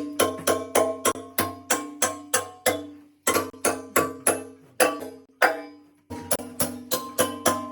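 Background music: a fast percussive beat, about four strikes a second, with pitched notes, breaking off briefly twice.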